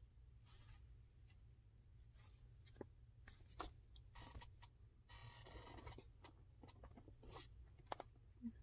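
Near silence: faint rustling and a few light clicks from yarn skeins and their paper labels being handled, over a low steady room hum.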